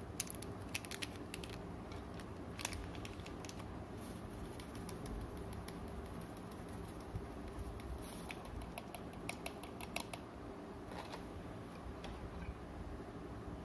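A small plastic stick sachet crinkling as it is torn open and its powder shaken into a glass cup, heard as scattered light crackles and ticks over a steady low hum.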